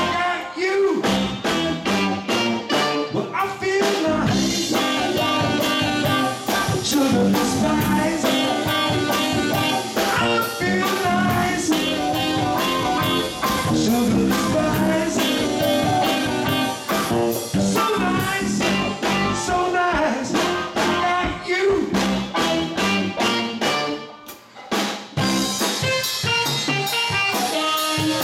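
Live band music: saxophone, electric guitar and drum kit playing an instrumental passage over a steady drum beat. About three-quarters of the way through, the band stops for a moment, then comes back in.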